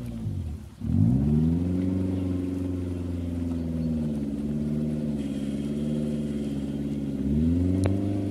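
Off-road SUV engine revving hard as it churns through deep mud ruts. The revs drop sharply just under a second in, climb back and are held high with a wavering note, then rise again near the end. A single sharp click comes near the end.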